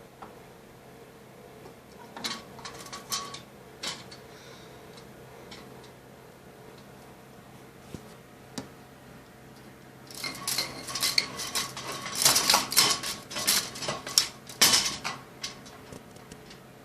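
Cat chattering at a bird it sees: bursts of rapid clicking, a short run about two seconds in and a longer, louder run from about ten seconds that stops about fifteen seconds in.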